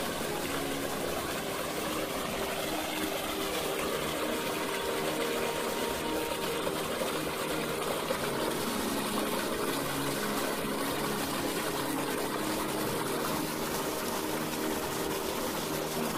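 Small woodland stream rushing steadily over rocks and tree roots in a little whitewater cascade.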